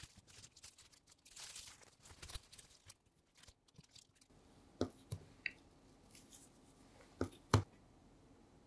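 Crinkling of plastic wrap with light taps as pieces of baked tart shell are handled and set down on it. Then a fork cuts into a slice of lemon meringue tart, with several sharp clicks of the fork against the plate; the loudest comes near the end.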